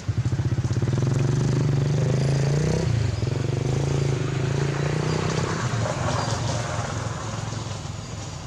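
A motor vehicle's engine running close by with a steady hum, growing fainter over the last few seconds as it moves away.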